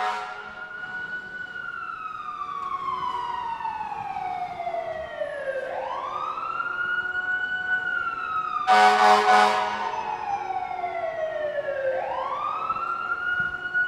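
Fire truck siren in a wail: a quick rise and a long, slow fall, repeating about every six seconds. Near two-thirds of the way in, a loud horn blast of about a second cuts across it.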